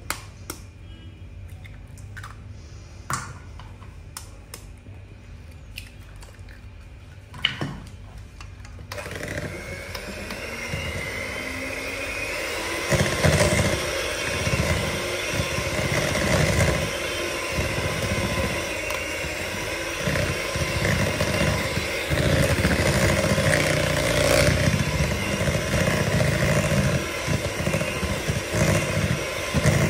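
A few light clicks and knocks, then about nine seconds in a motor starts running steadily and grows louder, with an uneven low rumble under it.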